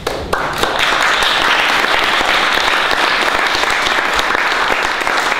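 Audience clapping, starting abruptly and holding steady.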